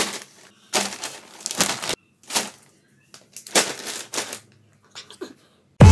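Clear plastic packaging bags crinkling and rustling in several short, irregular bursts as they are handled. Music with a beat starts right at the end.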